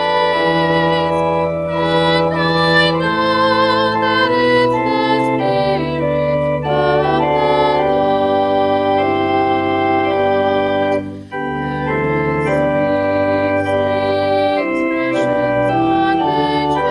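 Organ accompanying a woman singing a hymn with vibrato in held notes, with a brief break in the sound a little past the middle.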